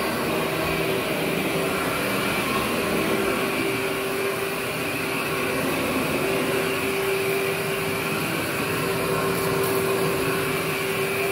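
Workhorse upright vacuum cleaner running as it is pushed over carpet: a steady motor hum with a constant whine.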